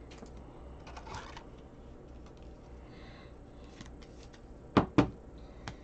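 Faint rustling and sliding of a trading card being handled and slipped into a clear rigid plastic card holder, then two sharp plastic clicks in quick succession near the end.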